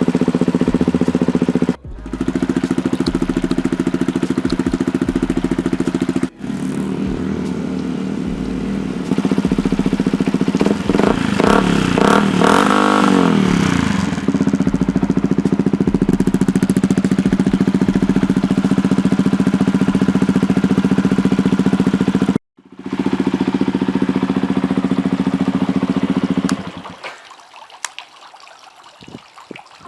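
Yamaha WR125X's single-cylinder four-stroke engine idling steadily through an aftermarket Scorpion exhaust, with a few quick blips of the throttle about halfway through. The sound drops out briefly a few times and stops a few seconds before the end.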